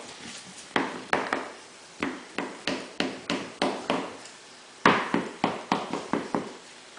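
A run of short, sharp taps, a few a second, in bursts with brief pauses; the loudest comes about five seconds in.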